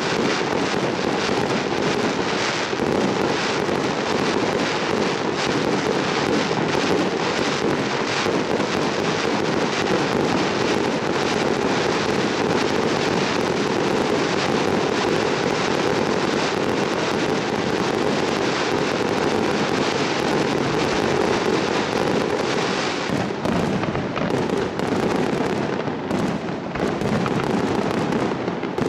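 Fireworks display: a dense, continuous barrage of bangs and crackling from shells bursting overhead. It thins briefly about three-quarters of the way through, then picks up again.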